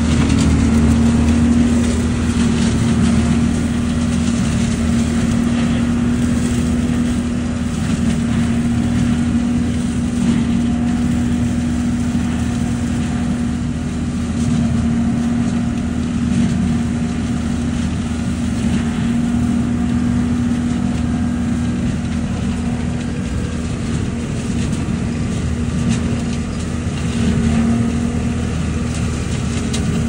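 ODB LCT650 leaf vacuum running steadily at working speed: a constant engine and fan drone with a steady hum, while its intake hose sucks up dry leaves from a pile.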